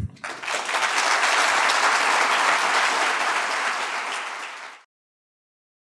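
Audience applauding, a dense steady clapping that starts right away and cuts off suddenly near the end.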